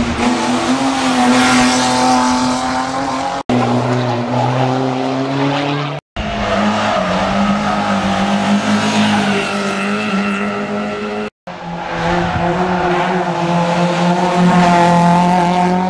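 Rally cars' engines running hard at high revs, heard in several short clips cut together. The sound drops out briefly three times at the cuts.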